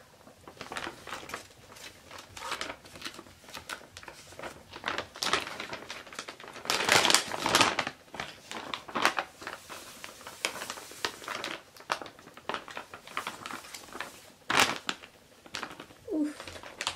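Plastic bag of sweet rice flour crinkling and rustling irregularly as it is handled and poured over a mixing bowl. The loudest bout of crinkling comes about seven seconds in, with another sharp crackle near the end.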